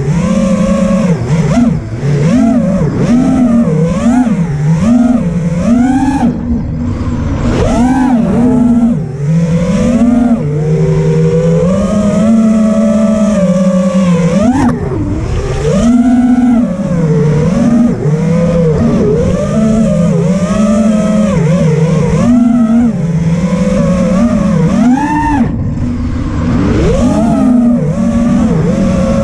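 5-inch FPV racing quadcopter's brushless motors and propellers whining, recorded by its onboard GoPro, the pitch constantly swooping up and down as the throttle is worked through fast turns.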